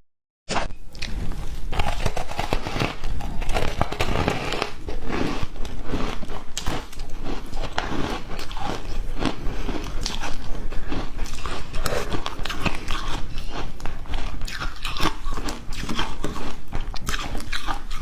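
Ice being bitten and chewed close to the microphone: dense, rapid crunching, after a brief gap right at the start.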